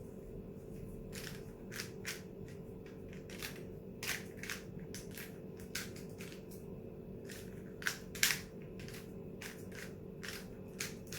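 Plastic packaging crinkling and clicking in irregular bursts as a new Rubik's-type cube is handled and unwrapped, loudest about eight seconds in, over a faint steady hum.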